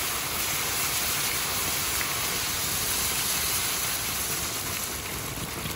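Garden hose water spraying onto a still-hot, freshly cast aluminum anthill casting, hissing steadily as the water flashes to steam, easing slightly near the end.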